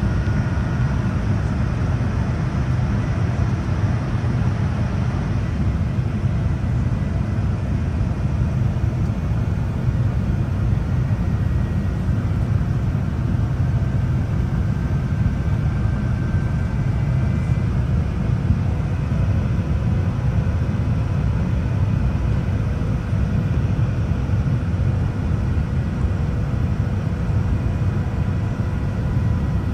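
Steady cabin noise inside a Boeing 787-10 airliner on approach: an even, deep rumble of airflow and engines, with faint steady high tones above it.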